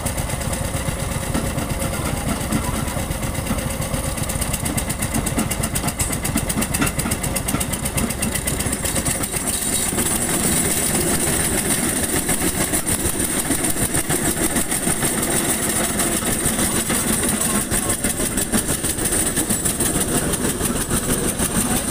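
Engine of road-building machinery running steadily with a fast, even pulse. About ten seconds in, the deep rumble eases and a higher hiss comes up.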